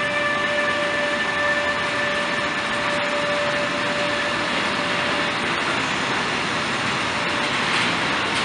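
Freight train of tank wagons rolling past at speed, a steady, dense rumble of wheels on rail. A steady high tone carried over from the passing locomotive fades away over the first few seconds.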